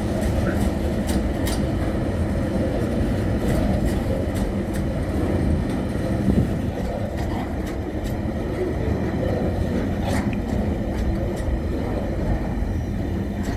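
Container flat wagons of a freight train rolling past at low speed: a steady rumble of steel wheels on the rails, with scattered sharp clicks and knocks.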